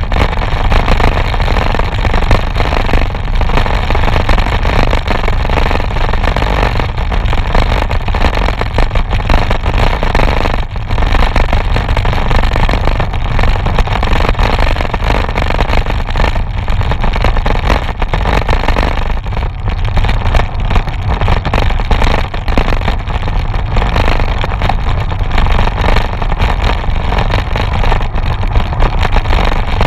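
Wind rushing over a handlebar-mounted camera's microphone on a moving road bike: a loud, steady rumble and hiss.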